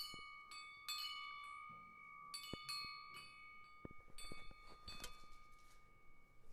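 Faint chimes ringing, struck irregularly every second or so, each strike leaving a long ring that carries over into the next, with a few soft knocks between.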